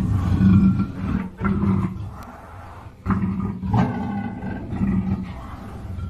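Black panther giving a run of deep, rough growling roars, with a short lull between about two and three seconds in before another long call.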